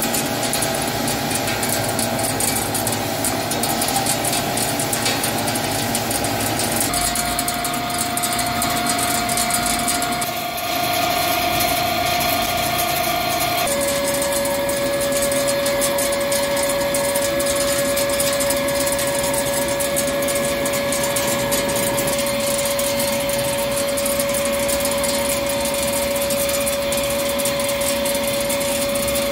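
Hankook CNC lathe turning a large steel spindle with a carbide insert under flood coolant: the machine's steady running and the hiss of the cut, with a steady whine that steps lower in pitch twice, about a quarter and about halfway through.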